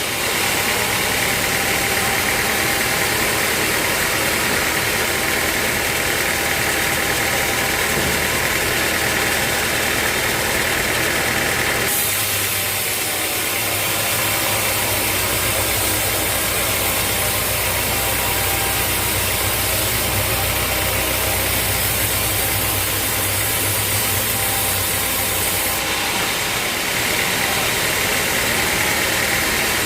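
Sawmill machinery running steadily and loudly. The sound shifts about twelve seconds in, as a deeper hum comes in, and changes back near the end.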